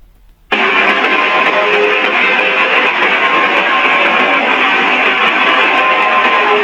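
Electric guitar, starting suddenly about half a second in with a loud, dense, held wall of sound.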